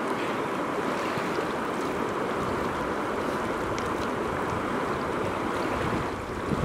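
Shallow river water rushing steadily, with a few faint small splashes.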